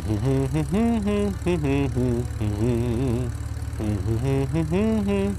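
A person's voice making pitched, rising and falling sounds in short and held notes, over a steady low buzz.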